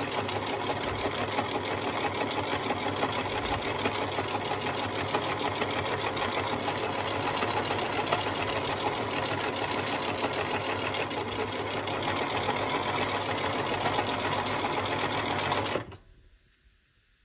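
Husqvarna 2000 model 6430 sewing machine running steadily at speed, then stopping abruptly about 16 seconds in.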